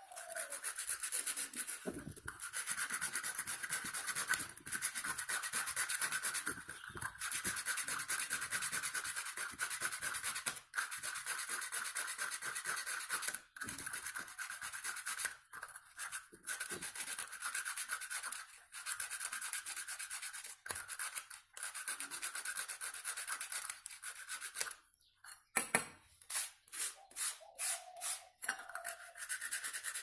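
Sandpaper rubbed by hand on a small rusty steel part of a bike horn, a fast back-and-forth scratching with short pauses, removing the rust. Near the end it turns into slower, separate strokes, several a second.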